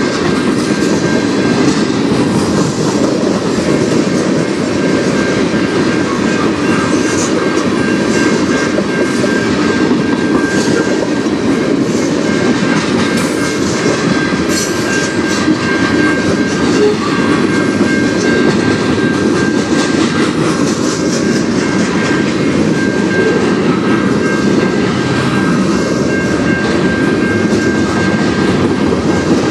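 Freight train of tank cars and covered hopper cars rolling steadily past a level crossing: the continuous rumble of steel wheels on the rails, with clickety-clack over the rail joints. A steady high tone from the crossing's warning bell rings over it.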